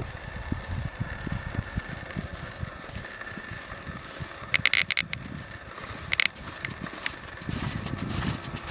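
A horse cantering on a sand arena, heard as dull, irregular hoofbeats over a low rumble. Two short, sharp sounds stand out, about halfway through and again about a second later.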